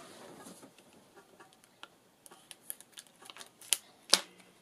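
A small knife being worked at a cellophane-wrapped packet to open it: scattered light clicks and taps of plastic and blade, with two sharper clicks near the end.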